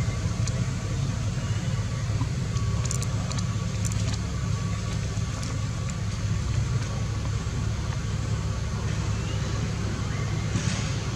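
A steady low motor rumble, like an engine running, with a few faint clicks above it.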